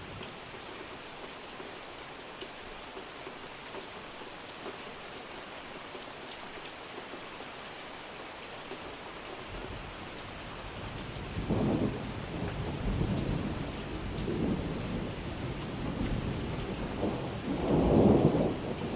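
Steady rain falling, with thunder rumbling in from just past the middle: several rolling rumbles, the loudest near the end.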